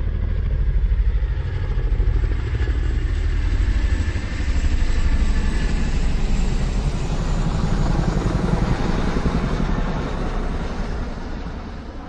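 A loud engine running with a rapid, even pulse, fading away near the end.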